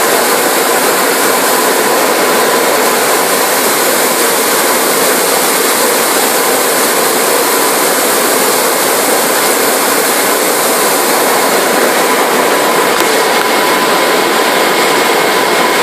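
Fruit and vegetable brush and high-pressure spray washing machine running: a steady, loud rush of spraying water and machine noise, with a faint steady whine.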